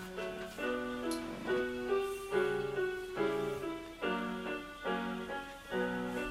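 Background solo piano music: a slow run of chords, struck one after another and left to fade.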